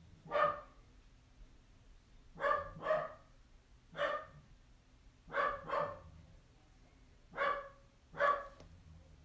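Pet dog barking repeatedly, about eight barks with several in quick pairs, set off by someone the owner supposes is walking past on the road.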